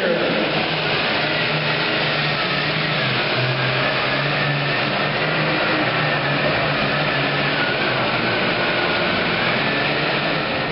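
Super farm class pulling tractor's turbocharged diesel engine running loud and steady at high power, with a high turbo whine that drifts slowly up and down in pitch.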